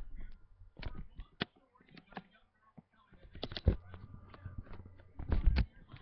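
Handling noise from a handheld phone camera: irregular knocks, clicks and rubbing, the loudest cluster about five and a half seconds in.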